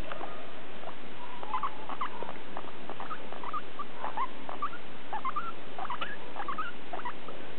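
Pet guinea pig squeaking: short rising squeaks, about two a second at irregular spacing, over a steady hiss.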